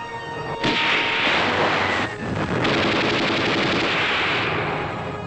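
Film battle sound effects: dense, rapid gunfire starts about a second in, breaks off briefly, resumes, then eases off near the end. Orchestral film score is heard before and after it.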